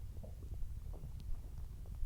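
A stomach digesting watermelon, rumbling faintly and low, with a few small gurgling pops.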